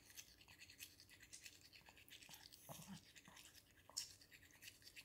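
Toothbrush bristles scrubbing a Pomeranian's teeth in faint, quick scratchy strokes, with a sharper click about four seconds in.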